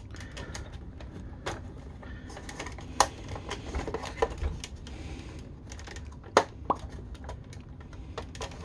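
Hard plastic toy vehicle parts clicking and knocking as they are handled and forced together, with irregular sharp clicks; the loudest come about three seconds in and again around six and a half seconds in.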